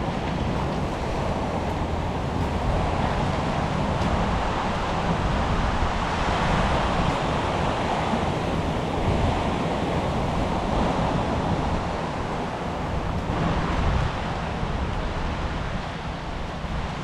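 Sea surf washing onto the beach in slow swells, mixed with wind rumbling on the microphone and a low steady hum underneath.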